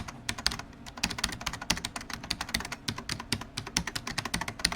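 Rapid, irregular clicking and tapping, like fingers typing on a keyboard.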